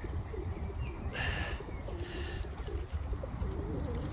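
Feral pigeons cooing, low warbling coos overlapping one another, over a steady low rumble. A brief rushing burst of noise comes about a second in.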